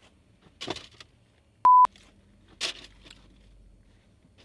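A short, loud electronic beep at one steady pitch about a second and a half in, with two brief rustles before and after it.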